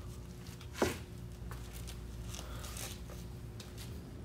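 Steady low hum of room tone, with one sharp click about a second in and a few faint ticks.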